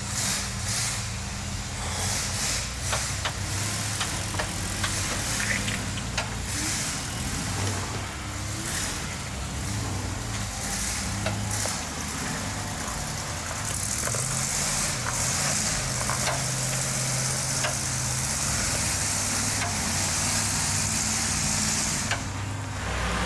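Off-road Jeep engine running at low, varying revs while crawling a trail, with scattered clicks and crunches from the tyres over rock and gravel. A hiss of tyre or wind noise grows stronger over the second half.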